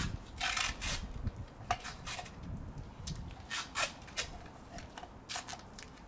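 Adhesive tape being pulled off a roll in a series of short, crackly rips as it is wrapped around the top of a scroll compressor; the longest rip comes just after the start.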